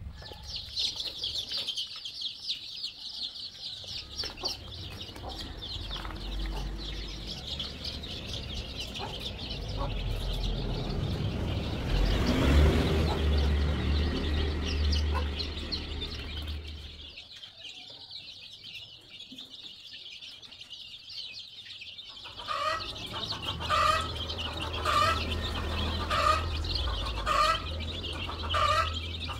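A large flock of young chicks peeping constantly, many high chirps overlapping. Near the end a lower call repeats about once a second over the peeping.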